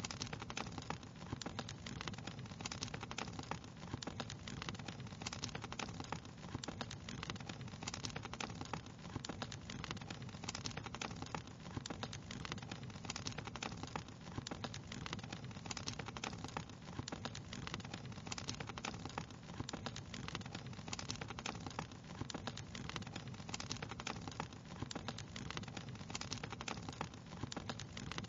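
Wood fire crackling steadily: a dense run of small snaps and pops over a low hiss.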